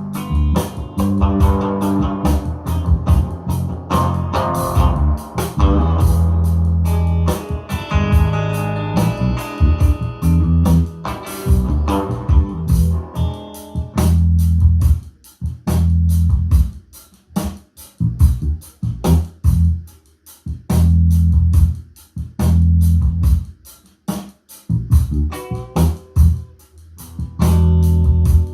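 Band music with bass guitar, guitar and drums played back through a Yamaha DXR8 powered PA monitor, as a speaker sound demo. The bass line is the loudest part throughout.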